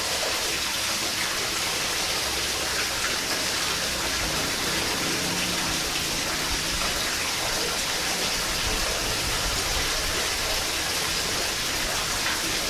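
Steady rain, an even hiss of falling water that neither rises nor falls.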